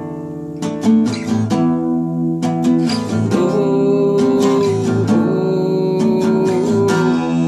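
Acoustic guitar strumming chords, an instrumental passage between sung lines of an unplugged song.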